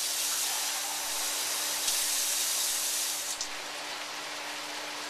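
Pork rib tips in water and sauce sizzling and bubbling in a hot wok, a steady hiss as the liquid comes back to a boil. The hiss grows louder about two seconds in, then drops off suddenly a little after three seconds.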